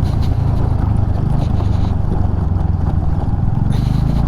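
Motorcycle engine running steadily while riding on a rough off-road track, with faint knocks and rattles from the bike over the uneven ground.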